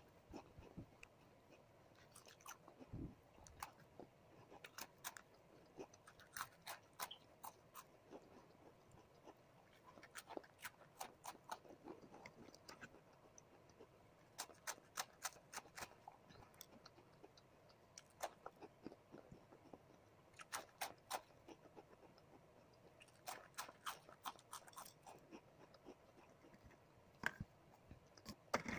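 A crisp round cracker being bitten and chewed close to the microphone: quiet clusters of small crunches come in groups, with short pauses between them.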